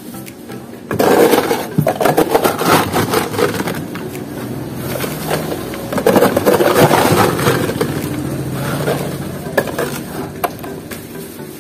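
Ice cubes clattering and scraping as a plastic bag is pushed into a styrofoam box of cube ice to scoop them up, with plastic rustling. It starts suddenly about a second in.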